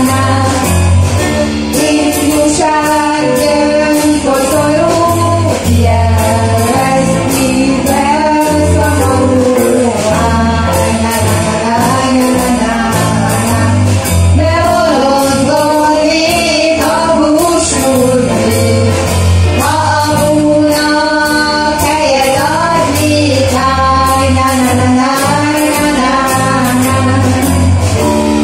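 Live band playing a song: a singer over electric guitar, bass and a steady drumbeat, loud and continuous.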